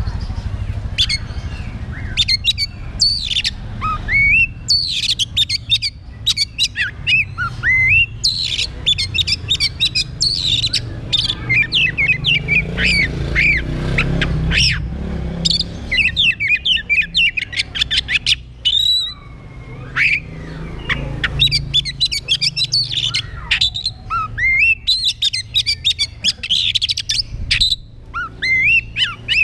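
Oriental magpie-robin (kacer) singing at full volume: a loud, fast, varied stream of whistles, sweeping notes and harsh chirps, with a brief pause about two-thirds of the way through.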